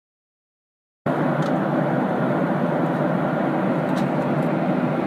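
Jet airliner cabin noise: the steady rush of the engines and airflow at cruise. It starts abruptly about a second in, after a short stretch of silence.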